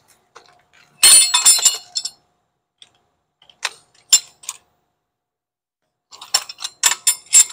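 Air impact wrench hammering in short bursts, the longest about a second, running down the bolts of a coil spring compressor on a front strut, with sharp metal clinks of tools in between.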